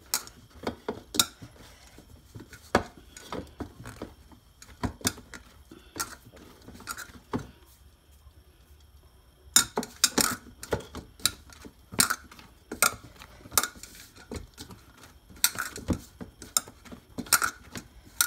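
Stiff dough being kneaded by hand in a stainless steel bowl: irregular sharp knocks and clinks as the bowl shifts and the hands strike it, about one or two a second, with a lull of about two seconds midway.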